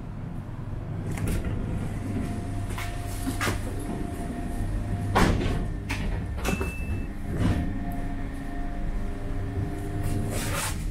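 Inside a suburban electric train: the steady running hum of the carriage, broken by several knocks and thuds from the interior vestibule doors, the loudest about five seconds in, and a short high beep at about six and a half seconds.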